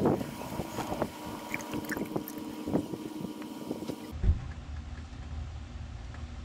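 Handling clicks and knocks from a plastic quart bottle of motor oil. About four seconds in, oil pours from the bottle through a plastic funnel into the engine, over a low steady rumble.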